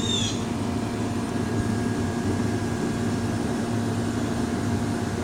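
Steady low rumble and hum of running machinery, even throughout with a few faint steady tones in it, and a brief high squeak at the very start.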